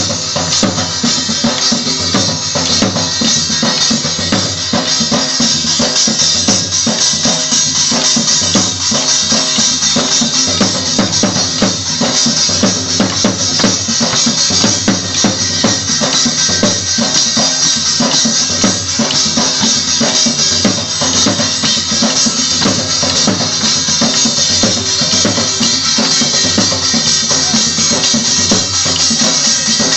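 Loud music for a Marwari dandiya dance, with a steady, driving drum beat.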